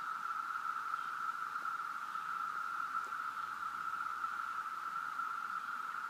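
A chorus of many cicadas singing together: a steady, unbroken drone held at one pitch.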